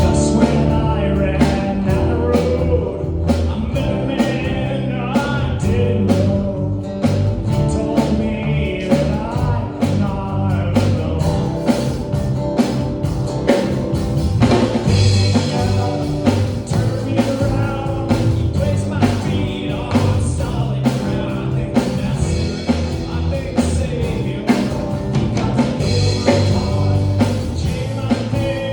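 Church worship band playing a rock-style song, with drum kit beating steadily, guitar and bass, and voices singing.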